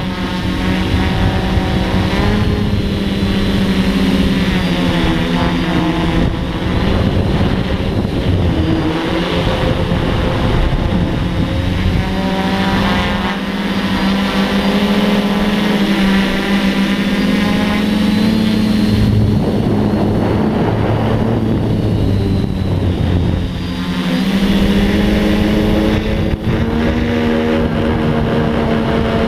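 Quadcopter's electric motors and propellers buzzing steadily, heard from the camera on the drone itself. The pitch steps up and down as the throttle changes while it manoeuvres, rising noticeably about two-thirds of the way through.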